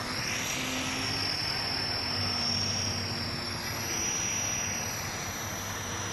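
Radio-controlled model airplane flying overhead, a steady high whine from its motor and propeller that rises slightly in pitch near the start and again about four seconds in, over a steady hiss.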